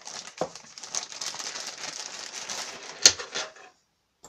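Clear plastic parts bag rustling and crinkling as it is handled, with a sharp click, the loudest sound, about three seconds in as a part is set down on the bench.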